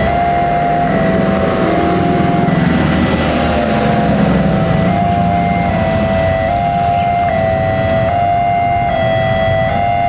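Railway level-crossing warning alarm sounding a loud two-pitch electronic warble, the pitch flipping back and forth about every 0.8 seconds, the signal of an approaching train. A rumble of passing traffic swells and fades during the first half.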